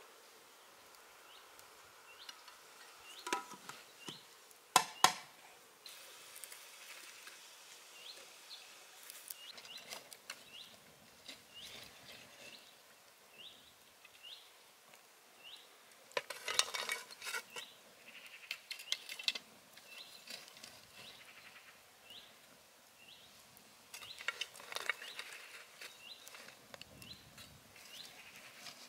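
Clanks and clatter of a metal cooking pot and firewood at a wood-fired clay hearth as the fire is tended with a stick, with two sharp metallic strikes about five seconds in as the loudest sounds and further bursts of clatter later. A bird repeats a short, high rising chirp about once a second.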